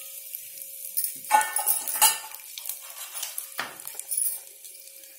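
Whole spices (bay leaves, marathi moggu, kalpasi and cloves) sizzling in hot oil and ghee in an aluminium pressure cooker, with a few knocks of a utensil against the pot around a second and a half in and again near four seconds.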